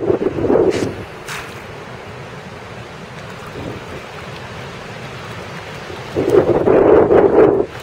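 Wind buffeting the microphone: a steady rumble with a gust right at the start and a longer, louder gust near the end.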